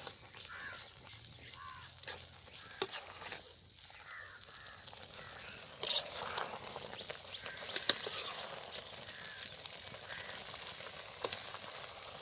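Steady high-pitched insect chorus, with a few sharp clicks.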